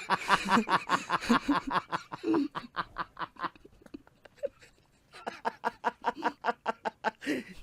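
People laughing hard, in a rapid run of ha-ha pulses. It breaks off a few seconds in, then starts again in a second bout.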